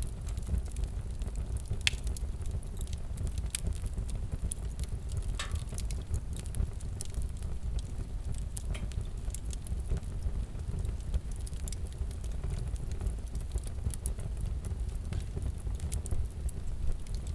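Wood fire crackling: a low steady rumble of flames with irregular snaps and pops.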